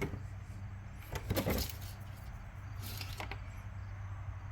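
2010 Honda Odyssey's 3.5-litre V6 idling with a steady low hum, with brief handling noises from the oil dipstick about a second and a half in and again around three seconds.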